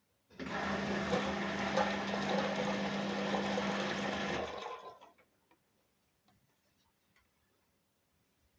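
Washing machine filling with water during its pre-wash: water rushing in through the detergent drawer with a steady hum from the inlet valve, starting just after the start and cutting off suddenly after about four and a half seconds.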